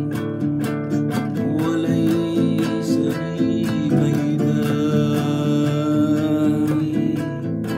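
Acoustic guitar strummed in a steady rhythm. From about a second and a half in, a voice holds a long, wavering note over it.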